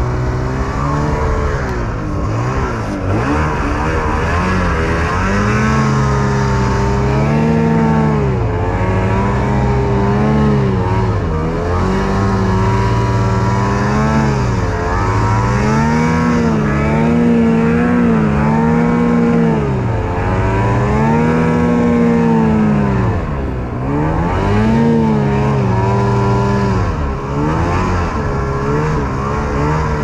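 Snowmobile engine revving up and down under varying throttle while riding through deep powder snow, its pitch rising and falling every couple of seconds, with a brief drop about three quarters of the way through.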